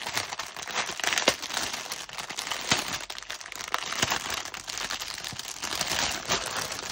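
Clear plastic wrapping crinkling and crackling as it is handled and pulled open around a bundle of small plastic bags of diamond-painting drills, with many sharp, irregular crackles throughout.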